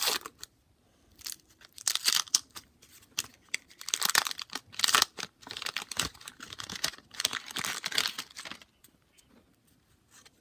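Wax-paper wrapper of a 1989 Donruss baseball card pack being torn open and crinkled by hand, in several crackling bursts that stop about a second before the end.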